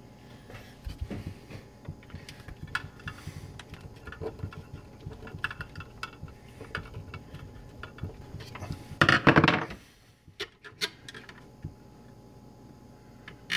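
Small clicks and knocks of a black plastic switch box and a screwdriver being handled while the box is screwed to the underside of a wooden cabinet, with a louder scraping noise about nine seconds in.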